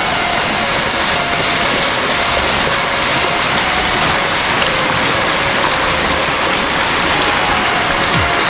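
Mountain stream water rushing steadily, a loud, even hiss of flowing water.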